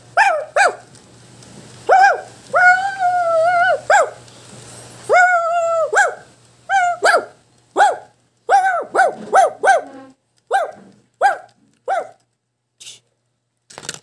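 Plush toy dog giving out a string of short, high barks at the same pitch, with two longer drawn-out howls about three and five seconds in; the barks space out and grow fainter near the end.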